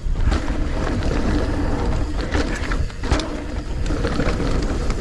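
Mountain bike descending a dirt trail at speed: wind rumbling on the microphone, tyres on loose dirt and the bike rattling over bumps, with a hard jolt about three seconds in.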